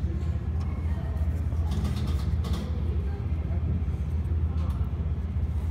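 Faint plastic clicks and rattles of hands working at an engine-bay electrical connector, most of them about two seconds in. They sit over a steady low rumble that does not change.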